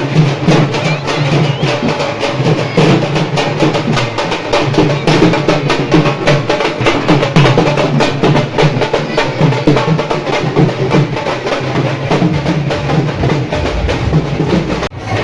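Music with a fast, driving percussion beat of rapid drum and wood-block-like strikes. The sound cuts out for a moment near the end.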